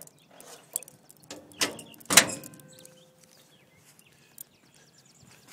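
A pickup truck's steel hood slammed shut: one loud metallic bang about two seconds in, with a short ringing after it. A few lighter knocks come before it.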